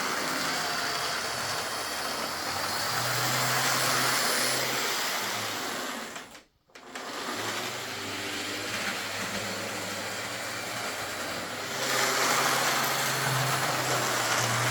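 Lima OO gauge Class 55 Deltic model locomotive running on track, a steady motor-and-gear whirr with a low hum. It stops for a moment about halfway through, then starts up again. The noise is typical of these old Lima diesels rather than a fault.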